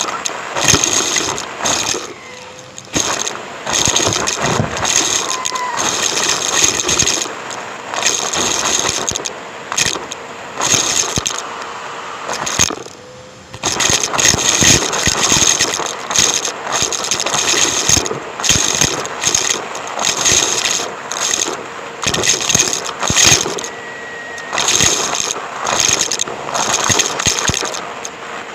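Numatic James tub vacuum cleaner running, heard through a microphone fitted to the machine, with debris rattling and crunching as it is sucked up. The sound comes in uneven bursts with short lulls, the clearest lull about thirteen seconds in.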